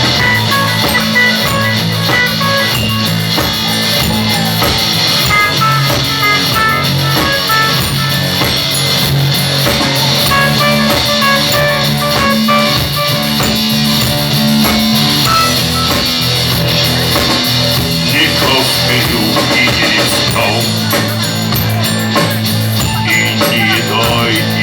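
A rock band playing an instrumental passage, with guitar and drum kit.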